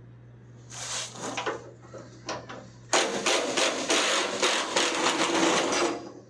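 Small cordless impact wrench on a 1/2-inch bolt: a couple of short bursts, then about three seconds of continuous rapid hammering that breaks the bolt loose.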